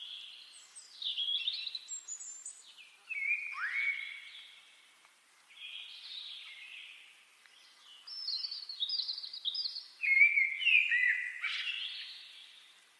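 Birds chirping and whistling in short bursts of varied calls, some sweeping down in pitch, with brief gaps between the groups. Nothing else is heard underneath.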